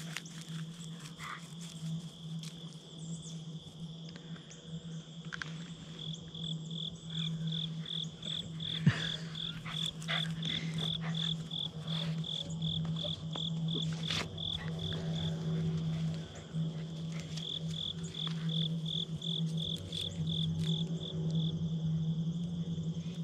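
Insects chirping in a high, even pulse of about three chirps a second, stopping briefly and starting again, over a steady low hum. A single sharp click about nine seconds in.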